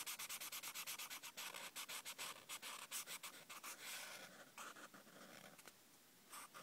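Felt-tip marker scribbling rapidly back and forth on notebook paper while colouring in, about ten strokes a second, thinning to a few scattered strokes about four seconds in.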